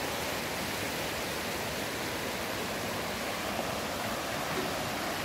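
Swollen river in flood, running fast beside the road: a steady, even rush of water, still running high and strong after the floods.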